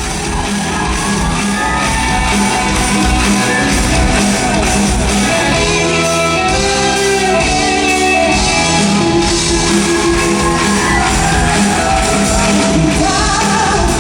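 Live band music with a steady beat and singing.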